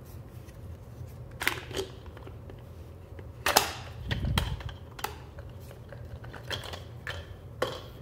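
Hard plastic clicks and knocks as a blue CEE industrial plug and its 32-amp waterproof socket are handled, pulled apart and set down. The loudest is a sharp clack about three and a half seconds in, followed by a low thump.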